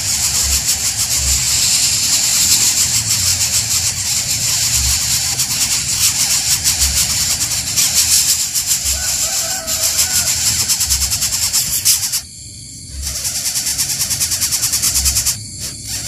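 Coucal nestlings begging with a rapid, rasping hiss. The hiss breaks off about twelve seconds in, starts again, and stops near the end. A soft low thud comes about every two seconds underneath.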